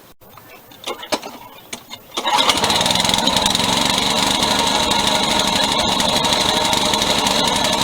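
Walk-behind lawn mower's small single-cylinder engine running steadily, loud. It comes in suddenly about two seconds in, after a few faint clicks.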